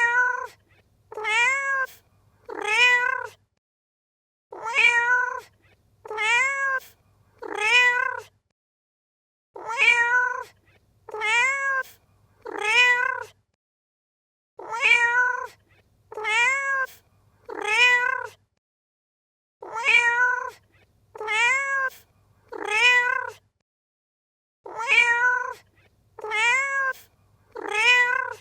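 Domestic cat meowing in sets of three short meows about a second and a half apart, the identical set repeating every five seconds as a loop.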